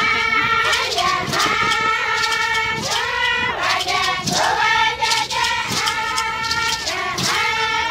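A group of Indigenous women singing a chant in unison, the repeated phrases sliding up and down in pitch, with sharp beats at a fairly even pace.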